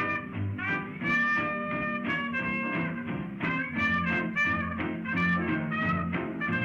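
Background music in a swing-jazz style with brass, playing steadily.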